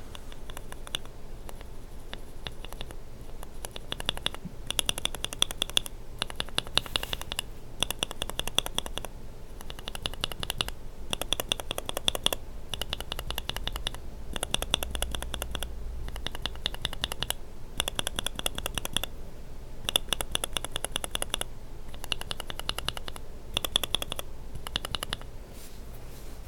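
Lubed mechanical keyboard switches with Kailh burgundy linear stems being pressed rapidly by hand. The clacks come in quick runs about a second long, with short pauses between them.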